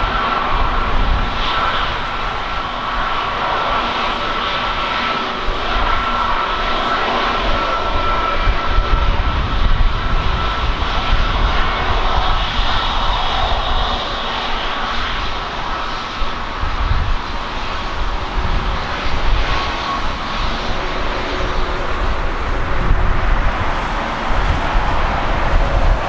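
Airbus A321neo's Pratt & Whitney geared turbofan engines running at taxi thrust: a steady jet whine with a thin high tone that is clearest over the first several seconds. Under it, gusty wind rumbles on the microphone.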